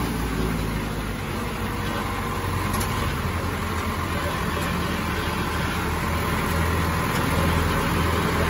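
Diesel tractor engines running steadily at close range, a low hum that grows a little louder in the second half.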